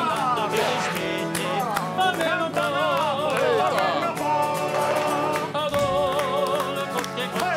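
Tarantella music with singing, with frequent sharp percussive hits throughout.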